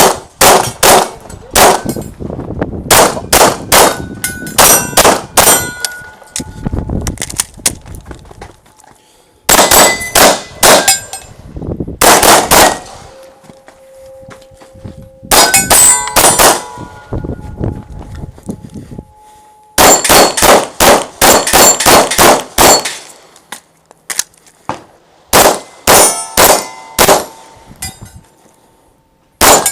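Quick strings of airsoft pistol shots, with BBs striking steel targets that clang and ring on briefly after hits. The shots come in several bursts with short pauses between them as the course is run.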